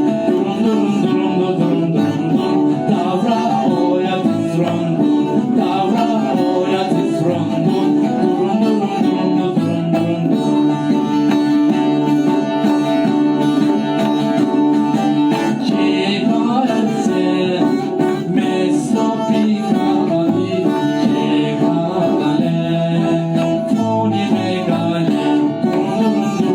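Band music with plucked string instruments and a singing voice, playing steadily and loudly without a break.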